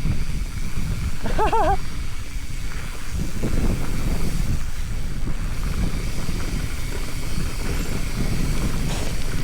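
Wind buffeting the microphone over the low rumble and rattle of a mountain bike descending a rough, steep trail. About a second and a half in comes a brief wavering vocal cry.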